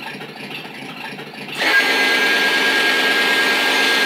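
Small electric gear motor inside a Mattel Justice League Ultimate Batmobile remote-control toy whirring as it drives the gun turrets round, starting about one and a half seconds in with a steady high whine over the whir.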